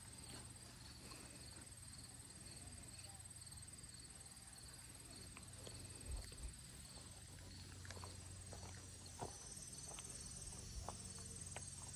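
Faint outdoor ambience of insects calling: a steady high trill with a second, pulsing insect call beneath it. A few soft knocks come about halfway through.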